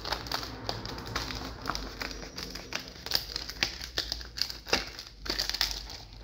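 Coarse 60-grit sandpaper crackling and crinkling as it is folded back and forth over the edge of a board, so that it splits along the crease. The crackles are irregular, with a louder run about five seconds in.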